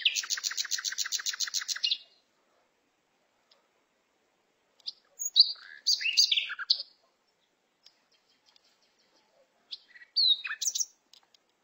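Birds calling. A fast trill of rapidly repeated high notes runs for about two seconds, then short bursts of chirps come about five to seven seconds in and again near the end, with silence between.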